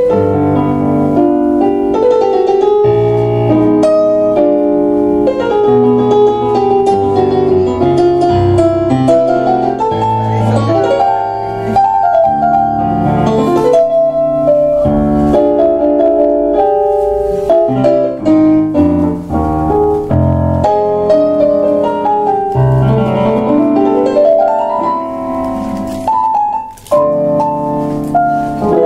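Tango played on two keyboards: an acoustic-sounding piano and a Kawai MP6 digital stage piano, with flowing melody over chords. There is a brief break near the end.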